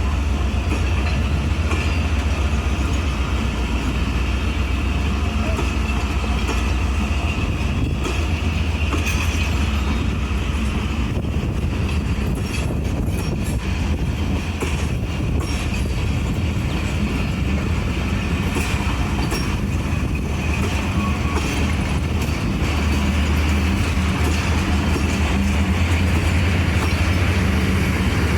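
Train on the move: the deep, steady engine rumble of a ZCU-30 diesel locomotive with continuous wheel-on-rail noise from the coaches, growing a little louder in the last few seconds.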